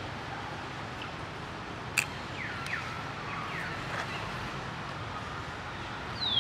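Steady outdoor background hiss, a single sharp click about two seconds in, then a string of short, whistle-like animal calls, each falling in pitch, from about halfway through.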